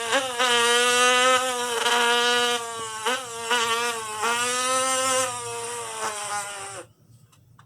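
A person imitating a two-stroke dirt bike engine with his voice: a steady, buzzing engine drone held in long stretches at nearly one pitch, with a few brief breaks between them. It stops abruptly about seven seconds in.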